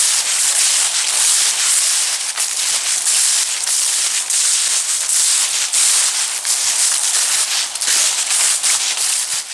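Footsteps crunching through dry fallen leaves: a dense, continuous crackle and rustle of brittle leaves breaking underfoot, full of sharp crisp snaps.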